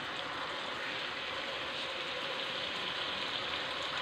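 Chicken pieces with chopped onion, capsicum and tomato sizzling steadily in a wok, the vegetables being cooked briefly in the chicken's last juices to take off their rawness.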